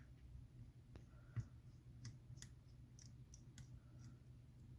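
Faint, scattered small clicks of a precision screwdriver turning out the pentalobe screws beside an iPhone 7's charging port, with one slightly louder click about a second and a half in.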